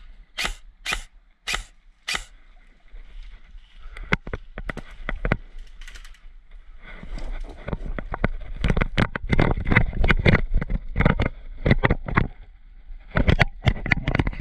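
Four sharp airsoft gun shots about half a second apart, then the quick irregular thuds of running footsteps on soft wet grass with gear rattling against a body-worn camera, loudest in the last half.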